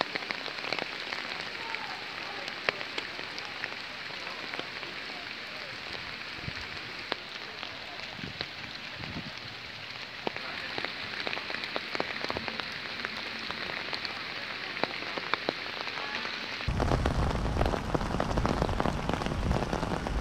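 Steady rain falling, an even hiss sprinkled with many close drops ticking. Near the end a louder low rumble joins in.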